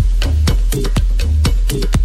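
Techno-house music mixed live on DJ decks: a steady kick and bassline pulsing about twice a second, with sharp percussion hits between the beats.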